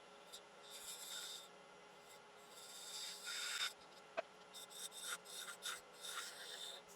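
Lathe tool shaving a small bead on a spinning wooden handle on a wood lathe: a series of short scraping hisses, quicker and shorter toward the end, over the lathe's faint steady hum.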